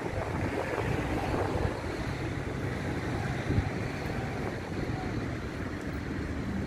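Wind buffeting the microphone: a steady, dense rumble without any distinct events.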